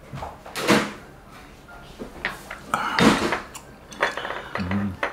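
Tableware clatter while eating: chopsticks and utensils knocking against a shallow pan, plates and glasses in a few short bursts.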